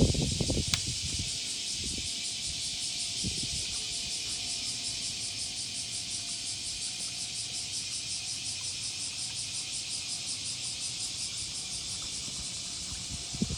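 Insects chirping in a steady, fast pulsing trill, with a few low knocks near the start.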